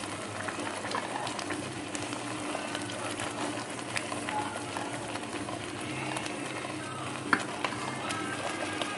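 Thick bubur asyura porridge at the boil, stirred with a wooden spatula in a wok: a steady bubbling with many short pops and soft scraping.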